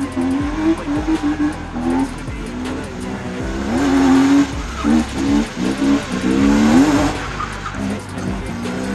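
A drift car's engine revving and dropping back over and over, its pitch sweeping up and down several times. Tyre noise swells around the middle as the car slides.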